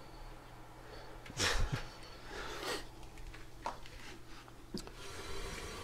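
Two short breathy exhales about a second apart, then a few faint handling clicks and rustles, over a low steady hum.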